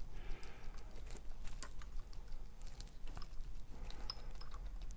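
Daniu tubular lock pick being worked in a Dynalock tubular lock: small, irregular metallic clicks and ticks from the pick's needles and the lock's barrel.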